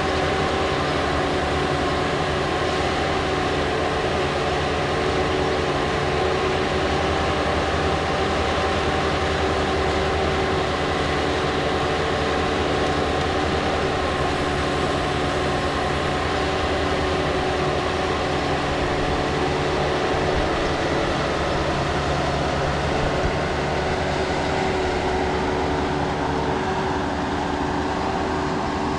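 Bobcat 773 skid-steer loader's diesel engine running steadily, its pitch holding constant.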